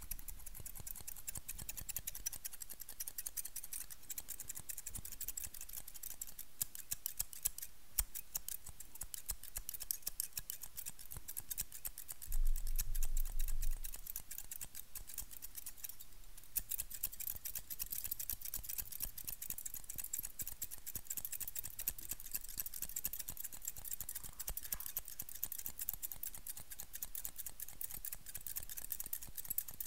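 Steel barber scissors snipping very fast right at the microphone: a continuous run of crisp metallic snips. A louder low rumble for about a second midway.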